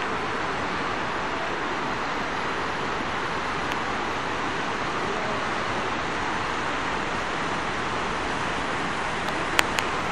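Indoor fountain's single vertical water jet falling back into its basin, a steady rushing splash. Two sharp clicks just before the end.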